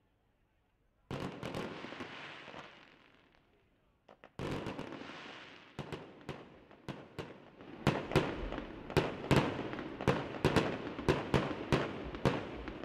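Fireworks: two short rushing bursts of noise, then sharp cracks and bangs that come faster and louder toward the end.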